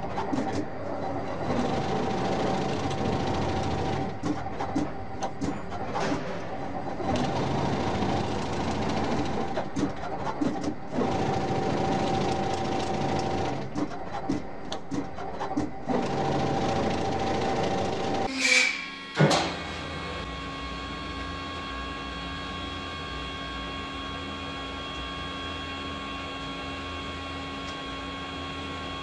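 Automatic stator winding machine running: a busy, fast-ticking mechanical clatter with a held tone as copper wire is wound onto the poles of an electric-motor stator. About two-thirds of the way through it breaks off with a sharp click. A steady machine hum with several held tones follows.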